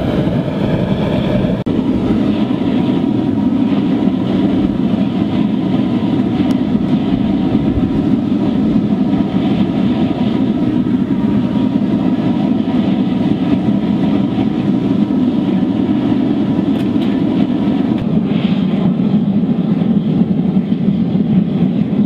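Waste-oil drip burner with blown air firing a 60-litre drum furnace: a steady, loud rushing rumble of forced air and burning oil, unchanging throughout.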